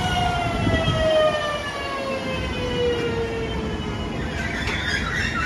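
Flytoget airport express electric train arriving: its traction motors whine in several tones that fall steadily in pitch as it slows, and about four seconds in a high brake squeal sets in.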